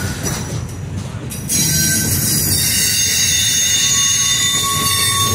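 Double-stack intermodal well cars of a CSX freight train rolling past, steel wheels rumbling on the rail. About a second and a half in it gets louder and a high, steady squeal from the wheels sets in over a hiss and holds.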